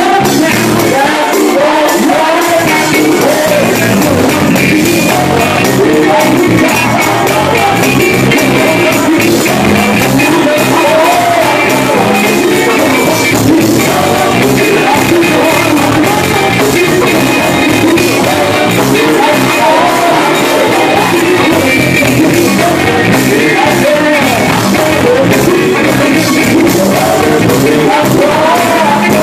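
Live gospel band playing loudly: a lead singer shouting and singing into a microphone over backing singers, electric guitar and drums, all amplified.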